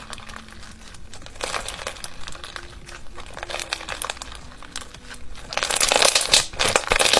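Thick, sticky slime being stretched and squeezed by hand, giving a run of sticky crackles and small pops, sparse at first and much denser and louder over the last second or two.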